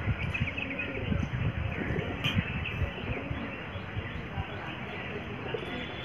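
Myna giving soft, low warbling calls that waver up and down in pitch, with a few short higher chirps, over steady wind noise on the microphone. One sharp click a little after two seconds in.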